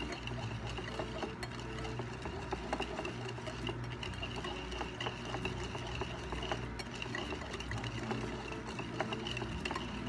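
Metal wire whisk beating instant coffee, sugar and hot water by hand on a ceramic plate: fast, steady clicking and scraping of wire against the plate, over a steady low hum. The mixture is still dark and runny, early in whipping it to a foam.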